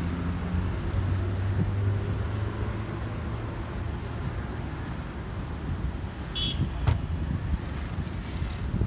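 Outdoor street ambience dominated by a steady low rumble of road traffic, with a brief high-pitched sound about six and a half seconds in and a sharp click shortly after.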